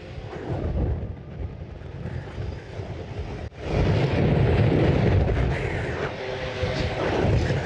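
Wind rumbling and buffeting on the microphone of a moving e-bike. It cuts out briefly about three and a half seconds in, then comes back louder.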